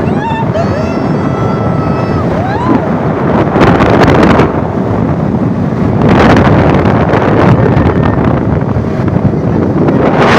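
Heavy wind buffeting the microphone over a vehicle engine running during an offroad ride, surging in gusts about three and a half seconds in and again from about six seconds.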